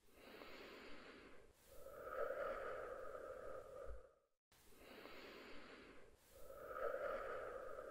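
Faint, slow breathing: two identical breath cycles, each a hissy stretch followed by a longer, fuller one, with a brief silence between them about halfway.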